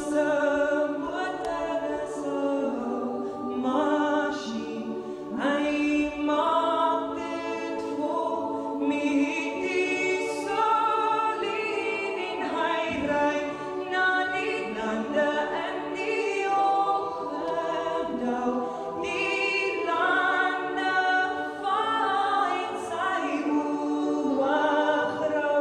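Large choir of women and children singing in harmony.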